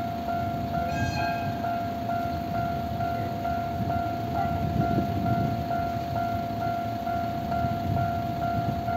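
Railway level crossing alarm ringing, a repeating electronic clang about twice a second over a held tone, with a low rumble beneath that swells about halfway through.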